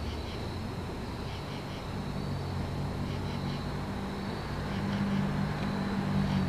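Low, steady electric hum of a Rotem Silverliner V electric multiple-unit train pulling away, swelling slightly partway through. Insects chirp steadily in the background.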